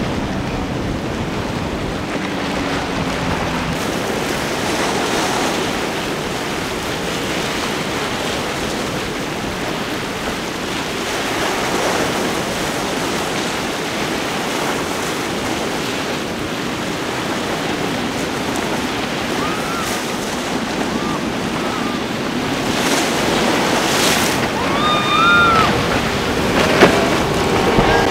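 Steady rushing wash of waves and wind on the microphone, with a few short high-pitched sounds near the end.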